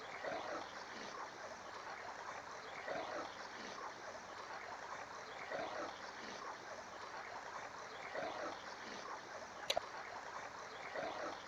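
Faint, steady running water of a small stream trickling, with one brief click near the end.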